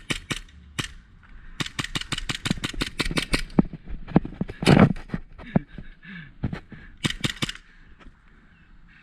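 Airsoft guns firing: a few shots, then a rapid string of about ten shots a second lasting about two seconds, followed by a louder thud about five seconds in and scattered single shots.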